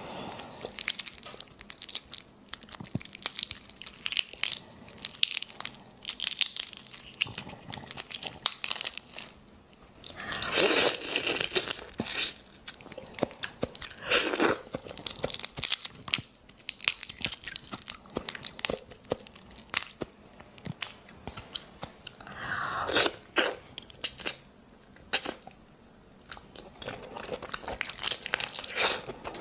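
Close-up eating of raw botan shrimp: the shell cracking and crunching between fingers and teeth, with chewing and many small crisp clicks. Louder stretches of crunching come about a third of the way in, again around halfway and again past three quarters.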